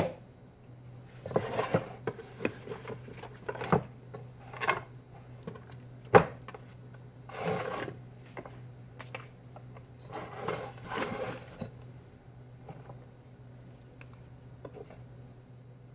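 Kitchen utensils scraping and rubbing on a wooden cutting board in short bouts of about half a second to a second, with scattered knocks, the sharpest about six seconds in. A low steady hum runs underneath.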